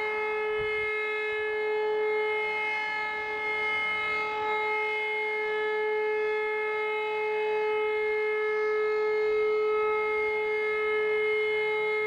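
E57 electromechanical civil-defence siren sounding one steady, unbroken tone: the German all-clear (Entwarnung) signal.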